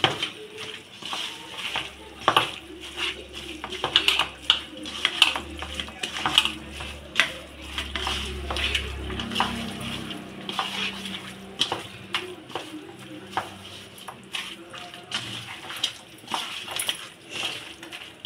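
Kitchen utensils clinking and knocking against a vessel in many quick, irregular taps while chicken is mixed with spice paste, with a low hum for several seconds in the first half.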